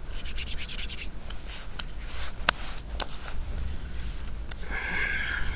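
Hands rubbing sticky birch tar into skin and hair: a quick run of scratchy rubbing strokes at first, then two sharp clicks in the middle.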